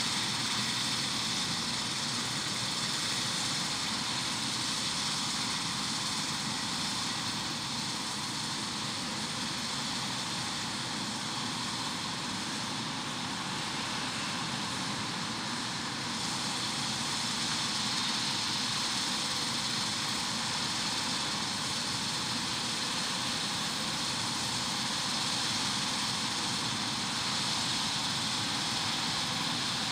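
Combine harvester running steadily, a constant rushing machine noise with no pauses or changes.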